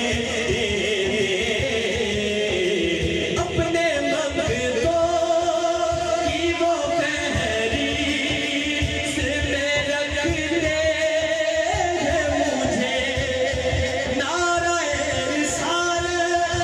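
A man singing a naat, an Urdu devotional song, into a microphone, in long, wavering held notes.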